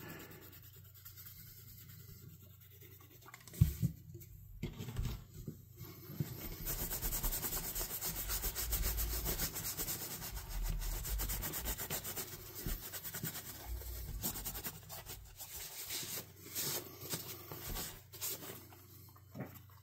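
Cloth rubbing and wiping over a small leather knife slip, buffing its surface. The rubbing comes in about a third of the way in and runs steadily, then breaks into shorter strokes near the end, with a few faint handling knocks before it starts.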